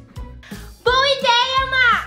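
Children's song: a bright singing voice starts about a second in and holds one long, wavering note that dips in pitch at the end, over a backing track with a steady beat about twice a second.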